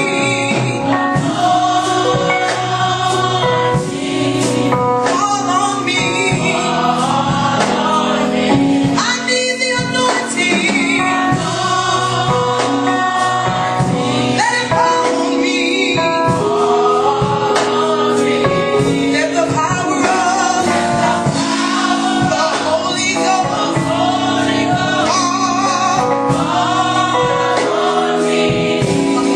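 Women's gospel choir singing together through microphones.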